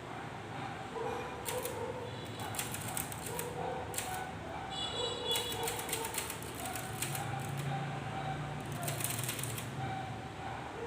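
K Clover 815 manual typewriter being typed on, with three bursts of rapid key strikes.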